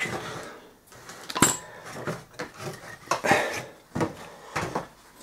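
Metal clanks, knocks and scrapes from a heavy, partly assembled motorcycle engine block, its crankcases bolted together, as it is turned over on a workbench. The sharpest knock comes about a second and a half in.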